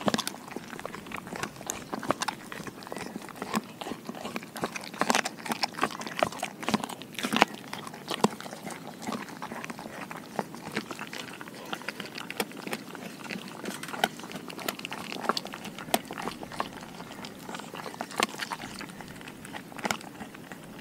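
A Doberman chewing raw food, with irregular crunches and clicks of her teeth, busiest about five to eight seconds in.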